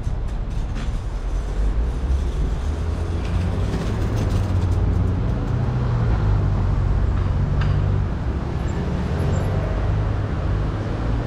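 Motor traffic on a city street: a steady low engine rumble, swelling a little in the middle as a vehicle passes.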